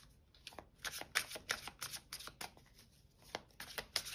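A large deck of oracle cards being shuffled by hand, the cards flicking and slapping against each other in quick crisp strokes several times a second, with a short pause a little before three seconds in.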